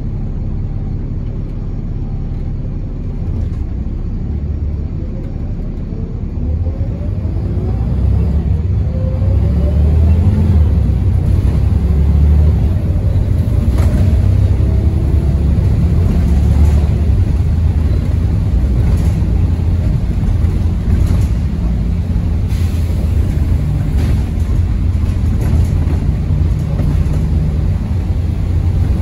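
Double-decker bus's diesel engine heard from the upper deck: a steady low rumble that grows louder about eight seconds in as the bus gathers speed, with rising engine whines and short rattles from the body.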